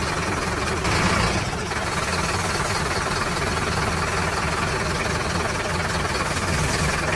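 A small motor running steadily. The sound swells briefly about a second in.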